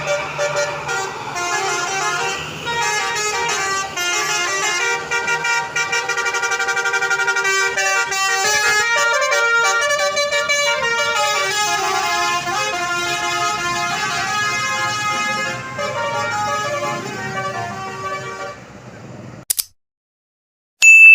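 Tour bus's basuri (telolet) musical horn playing a tune in quick stepped notes for about nineteen seconds, then cutting off.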